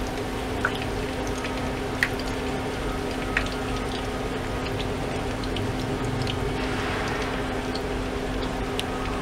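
A motor running with a steady hum over a low hiss, with a few light clicks scattered through it, the sharpest about two seconds in.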